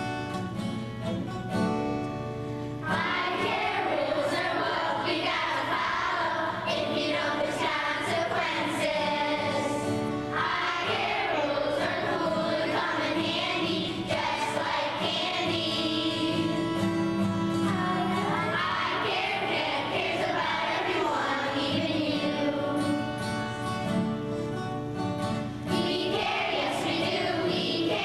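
A group of children singing a song together over instrumental accompaniment, the voices coming in about three seconds in after a short instrumental opening.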